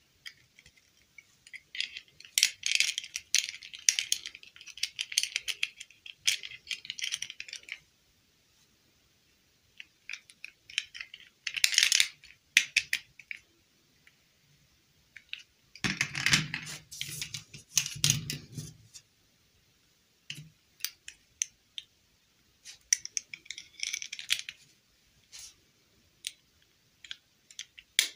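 Small plastic dolls and a soft plastic doll dress being handled and fitted together: irregular bursts of light clicks, rubbing and rustling, with a duller, heavier stretch of handling a little past halfway.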